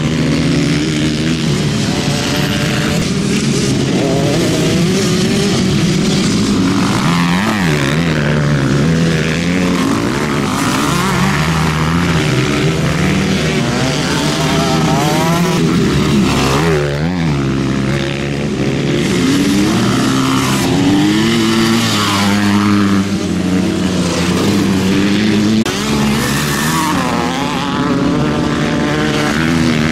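Several motocross bikes racing on a dirt track, their engines revving up and down through gear changes, overlapping one another. Bikes pass close by at about seven and seventeen seconds in, their pitch sweeping sharply as they go past.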